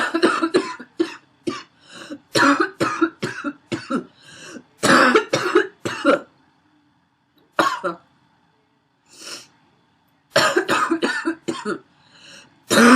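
A woman's wheezy, barking cough, coming in repeated fits of several rapid coughs each with short pauses between.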